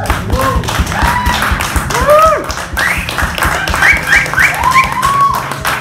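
Audience applause at the end of a performance: fast, dense clapping with several cheering whoops that rise and fall in pitch.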